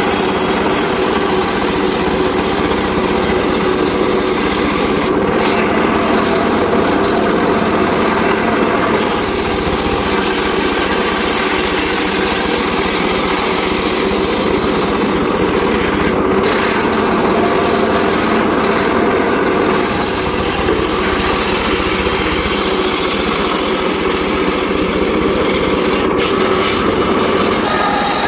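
Homemade circular saw rig running steadily while sawing sengon laut (albizia) timber, a continuous motor-driven hum. Its upper tone dulls for a few seconds roughly every ten seconds.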